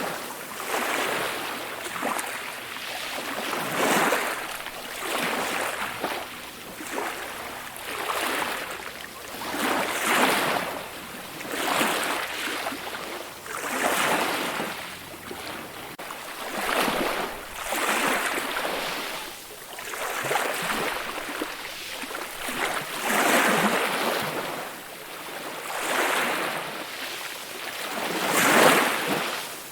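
Calm ocean waves washing in, a surge of hissing surf about every two seconds, with little low rumble; the biggest wash comes near the end.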